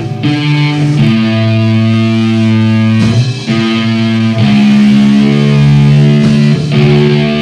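Electric guitar being tuned: long single notes held and shifting in pitch every second or two.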